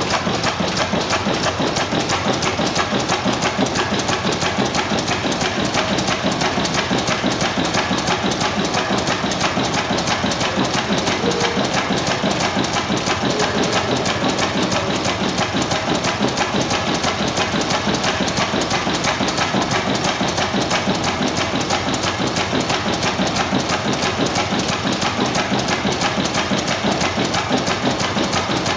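1904 Deutz E12 single-cylinder horizontal stationary gas engine running steadily, a fast, even mechanical clatter that does not change.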